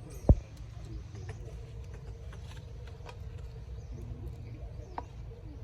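A single dull thump about a third of a second in, over a steady low rumble, with a few faint clicks.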